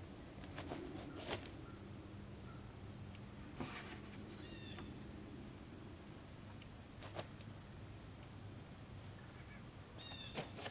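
A few scattered knocks and taps as the plywood bending form and the sapling wired to it are handled, over a quiet outdoor background with a steady faint high whine and two short chirps.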